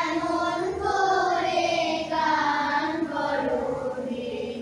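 Group of young schoolchildren singing together in unison, holding long notes that glide gently in pitch.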